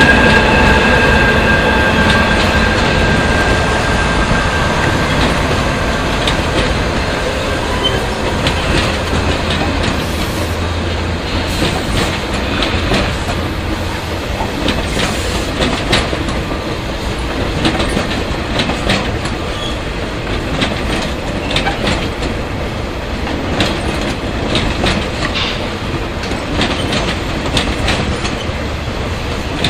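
A passenger train rolls past, hauled by Class 20E electric locomotives: a steady electric whine from the locomotives fades over the first few seconds. Then the coaches' wheels keep up a steady rumble on the rails, with many clicks and knocks over the rail joints.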